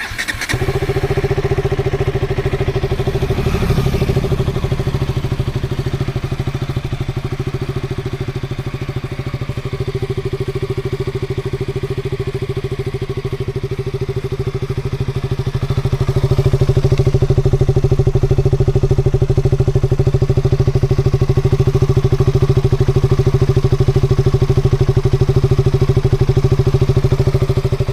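KTM RC 200's single-cylinder four-stroke engine starting up in neutral and running at a steady idle. The idle grows a little louder about halfway through and stays even.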